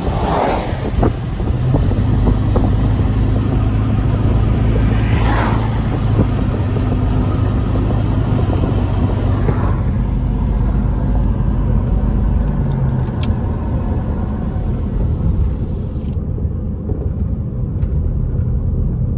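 Car interior while driving on a wet road: steady engine hum and tyre noise. Two brief swishes come about half a second in and again about five seconds in.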